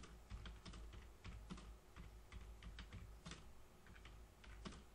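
Faint typing on a computer keyboard: an uneven run of keystroke clicks, several a second.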